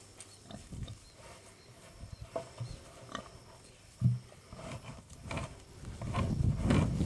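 Red Wattle sow grunting in short low grunts while feeding, the loudest about four seconds in, with scattered clicks. A low rumble of thunder builds near the end.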